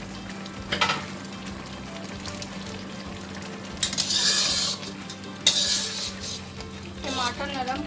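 Metal spatula scraping and stirring chunks of mutton and tomato in a karahi (wok) over the flame, with the sauce sizzling. There are two loud scrapes, about four and five and a half seconds in.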